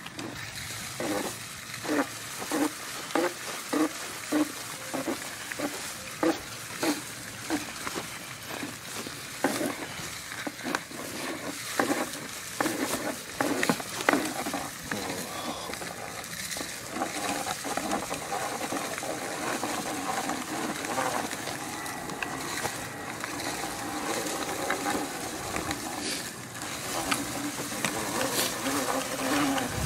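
Push broadcast spreader loaded with weed-and-feed granules, rolling over the lawn with its spinner and gearing rattling and granules scattering. A regular knocking about twice a second through the first ten seconds or so gives way to a steady whirring rattle.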